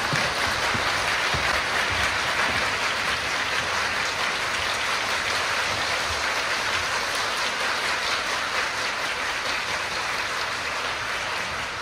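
Audience applauding steadily, a dense even clapping with no let-up, fading in at the start and out at the end.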